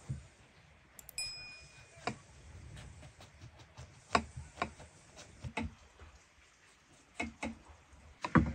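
Metal cookware and utensils being handled: a string of irregular knocks and clinks, with one clear ringing metallic clink about a second in.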